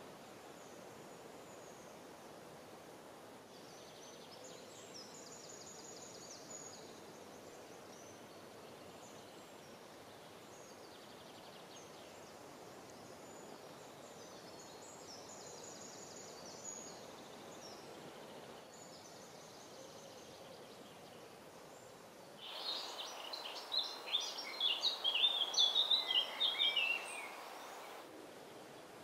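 Woodland background with faint, high bird calls. From about 22 seconds in, a bird sings loudly for about five seconds in a quick run of high notes.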